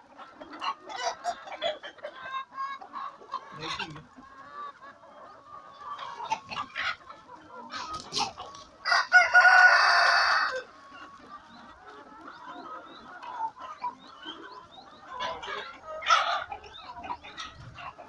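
A flock of Kuroiller chickens clucking and calling. About nine seconds in, a rooster gives one loud crow about a second and a half long.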